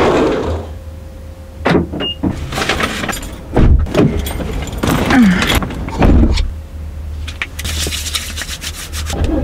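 Keys jangling and a series of knocks and thumps over a low steady rumble, typical of someone getting into a car and settling in.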